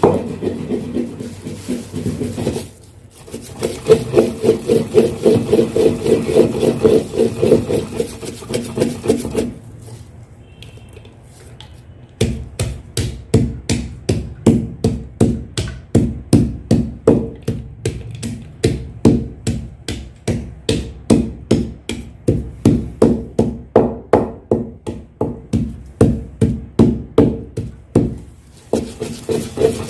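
Long wooden pestle grinding soaked almonds into a wet paste in a bowl, in rhythmic pounding and rubbing strokes about two to three a second. There is a short quieter break about ten seconds in.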